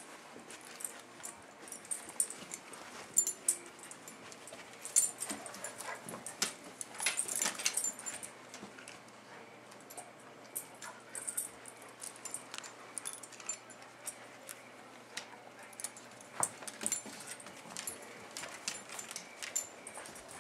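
Two black Labradors, a puppy and an older dog, moving and tussling around each other. Their metal collar tags jingle in scattered bursts and their claws click, with a busier flurry of jingling about six to eight seconds in.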